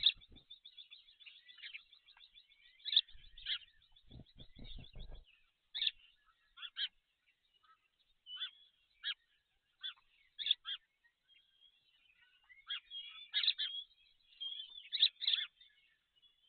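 Small birds chirping and calling, short high notes scattered throughout with busier patches. About four seconds in, a brief low rattling sound comes in and stops about a second later.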